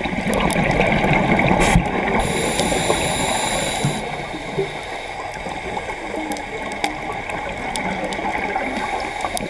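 Scuba diver's breathing underwater through a regulator: steady bubbling and gurgling of exhaled air, with a hiss about two seconds in that lasts roughly two seconds.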